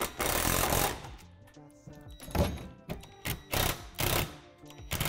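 Cordless drill driving bolts through a plastic playset's wall panels in short bursts: one run of about a second at the start, then several quicker bursts. Background music plays underneath.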